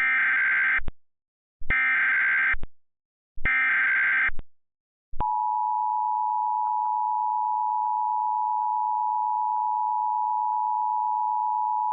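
Emergency Alert System tones for a tornado warning. Three short SAME data header bursts of just under a second each are followed, about five seconds in, by the steady two-tone EAS attention signal (853 and 960 Hz played together).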